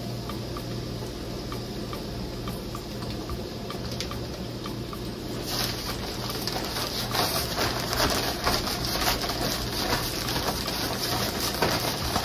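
Chicken frying in an electric deep fryer: hot oil sizzling and crackling, faint at first and swelling sharply about five seconds in.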